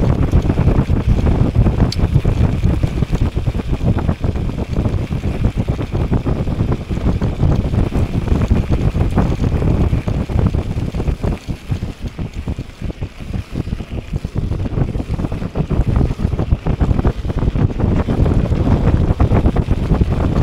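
Wind buffeting the microphone of a moving e-bike: a loud, continuous low rumble that eases for a few seconds past the middle, then returns.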